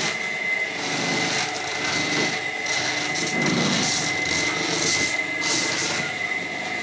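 Small electric motor running with a steady high whine, its shaft-mounted roller stripping kernels off a maize cob held against it, with bursts of rattling as the kernels fly off.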